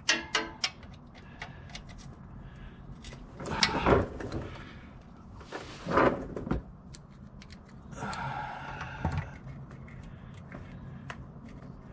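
Small metal clicks, clinks and scrapes of a socket on an extension being fitted over the transmission pan bolts and turned by hand, with two louder scrapes about 4 and 6 seconds in.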